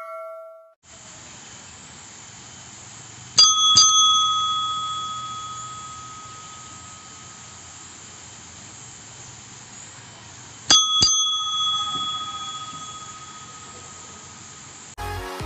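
Counter service bell struck twice in quick succession, then another quick double ding about seven seconds later, each ringing out and fading over a few seconds, over a steady hiss. Music comes in right at the end.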